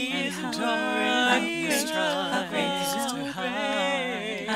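A worship song being sung, the voice gliding between notes and holding some long notes.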